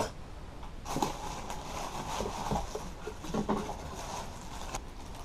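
Plastic wrapping crinkling and rustling as an intercooler is handled and lifted out of its cardboard box, starting about a second in, with a few light knocks.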